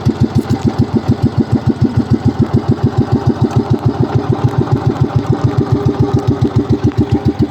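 A fishing boat's small engine running steadily at idle, a rapid even chugging of about seven beats a second.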